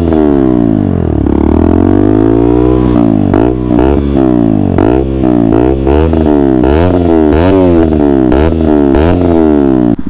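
KTM Duke 200's single-cylinder four-stroke engine revved hard at a standstill. The pitch falls and climbs back over the first three seconds, then the throttle is blipped over and over, the revs rising and dropping quickly.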